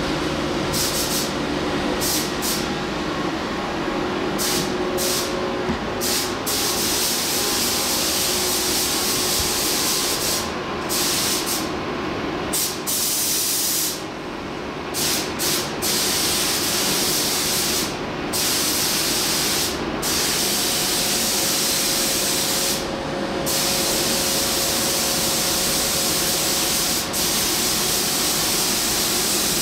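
Compressed-air spray gun hissing as it sprays primer onto a car body, the hiss stopping briefly a dozen times where the trigger is let go between passes. A steady hum runs underneath.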